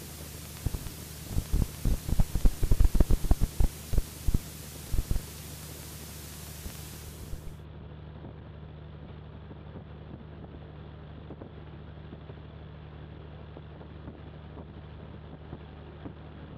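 Cessna's piston engine idling steadily, heard through the cockpit intercom, with a run of loud, irregular low knocks over the first five seconds from the flat, wobbling nose wheel as the plane taxis slowly. A hiss cuts out about halfway through.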